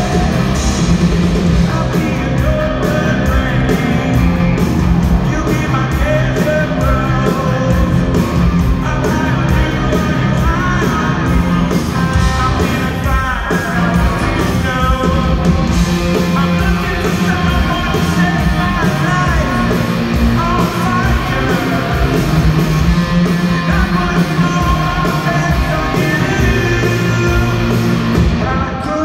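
Live rock band playing loudly: drums and electric guitars with a sung lead vocal over them.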